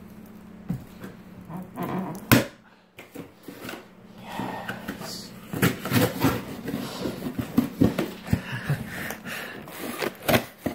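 Cardboard shipping box being slit open along its packing tape with a metal tool: a sharp knock about two seconds in, then a long run of scraping, tearing and crackling as the tape and cardboard are cut and pulled apart.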